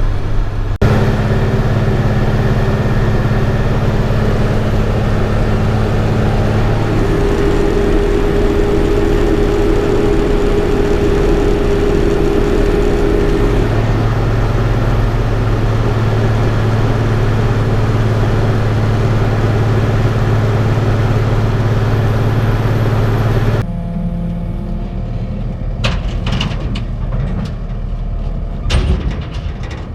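Truck engine running, a steady low drone whose pitch pattern shifts a couple of times. Near the end the sound drops abruptly to a quieter level, with a few sharp knocks.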